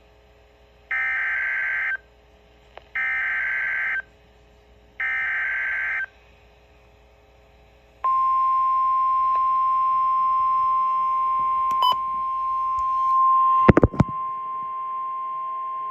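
Emergency Alert System SAME header: three one-second bursts of warbling digital data tones, then a single steady alarm tone near 1 kHz (the 1050 Hz NOAA Weather Radio warning tone) starting about eight seconds in, announcing a severe thunderstorm warning. Near the end a short burst of loud crackling cuts in, and after it the tone continues quieter.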